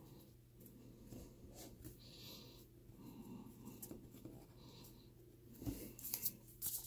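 Soft rustling and scraping of trading cards being handled and laid down on a tabletop, with a few louder rustles and taps near the end.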